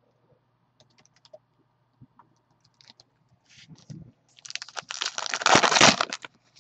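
Foil wrapper of an Upper Deck Ice hockey card pack being torn open and crinkled: a few faint ticks of handling, then a dense crackling for about two seconds near the end.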